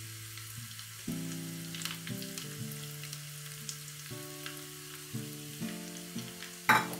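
Ghee tempering of ginger, cumin and dried red chilli sizzling and crackling in a small aluminium pan on a gas burner. Soft background music of steady chords plays over it, and there is a brief louder burst near the end.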